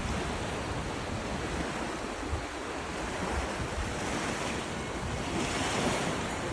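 Gentle sea waves washing onto a beach, with wind buffeting the microphone; the surf swells louder about five seconds in.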